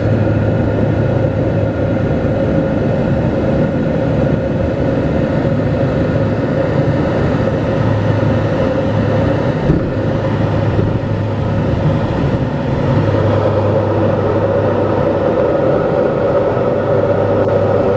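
Twin-turboprop commuter plane (Dornier 228) heard from inside the cabin: engines and propellers droning steadily, with a constant low hum and a steady mid-pitched tone. The drone grows slightly louder about two-thirds of the way through.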